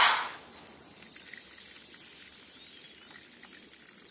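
A sudden rush of noise right at the start that dies away within about half a second, then faint outdoor ambience with scattered small clicks, slowly fading out.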